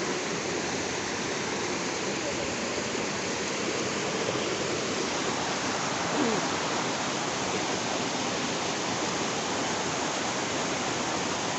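Steady rushing of water from a stream or small waterfall, an even hiss with no breaks.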